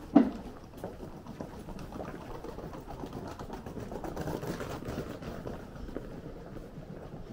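A single sharp thump just after the start, then a low, steady street background with scattered faint taps.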